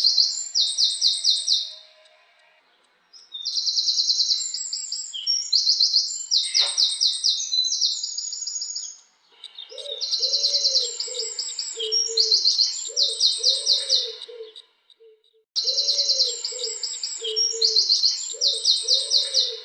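Wren singing three long songs, each a run of fast, high trills with short gaps between them. In the last two songs a lower, repeated cooing call sounds underneath, and there is one brief knock in the middle of the first song.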